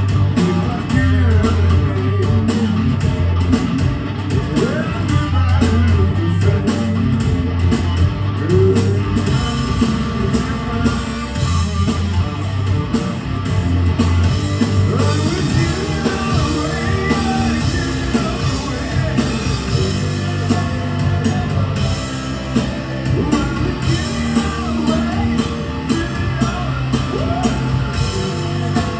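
Rock band playing live: electric guitar, bass and drum kit with a sung lead vocal, heard from the balcony of the hall.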